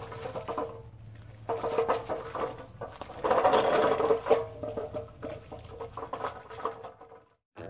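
Central Machinery 30-inch magnetic sweeper rolling over a muddy gravel driveway: its plastic wheels crunch and rattle on the stones in uneven spells, over a low steady hum.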